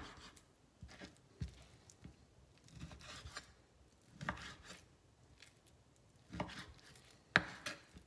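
Chef's knife cutting through raw chuck steak and knocking on a wooden chopping board. The short knocks come at an uneven pace of roughly one a second, with the sharpest about seven seconds in.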